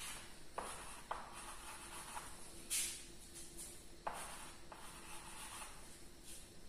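Chalk writing on a blackboard: a series of short scratching strokes as letters are drawn.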